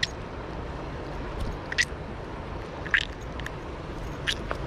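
Steady low rush of river water, with four short, sharp splashes a second or so apart.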